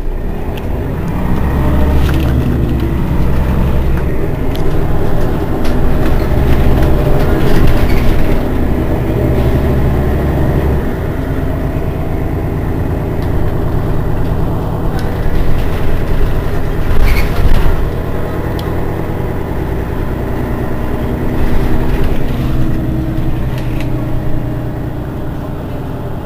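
Mercedes-Benz Citaro city bus engine running while the bus stands still, with a heavier low drone for the first ten seconds or so, then a steadier idle. A brief sharp noise comes about 17 seconds in.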